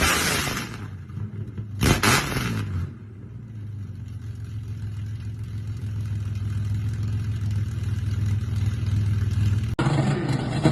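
Chevrolet Caravan six-cylinder engine with a loud, rumbling exhaust, revved twice in quick blips that fall away, then settling to a steady idle. Near the end it turns louder and rougher.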